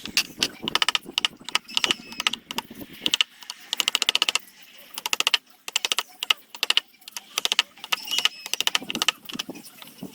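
Hand tools working wood: repeated clusters of rapid, sharp clicks and taps, with brief pauses between the groups.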